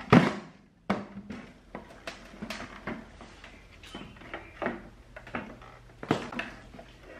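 A metal rack-mount power amplifier, a Crown Macro-Tech 2400, is set down on a wooden pallet table with a loud knock. Scattered smaller knocks and rubbing follow as hands shift the chassis and handle its power cord.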